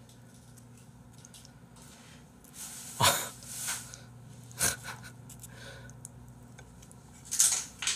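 A man chuckling under his breath: a few short, breathy laugh bursts about three seconds in, again near five seconds, and once more near the end, with quiet room tone between.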